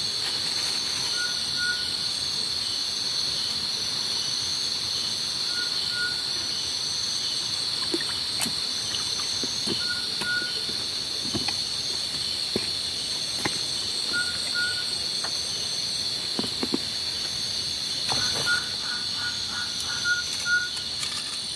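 Night-time insect chorus of crickets, a steady high drone, with a short double chirp repeating about every four seconds and a quick run of chirps near the end. Scattered soft knocks from footsteps in the stream bed.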